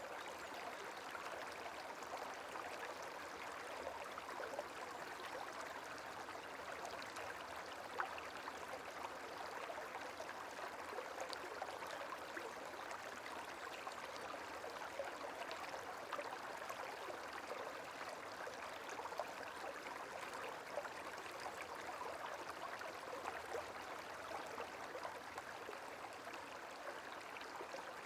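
Gentle running water, a small stream trickling and babbling steadily, with a few brief brighter drips or splashes standing out now and then.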